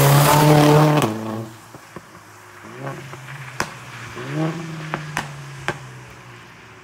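Mercedes-AMG CLA45 S's turbocharged 2.0-litre four-cylinder with a valvetronic catback and catless downpipes, passing close at full throttle, loudest in the first second, then cutting off abruptly. As the car moves away it accelerates twice more, with several sharp exhaust pops, and the sound fades.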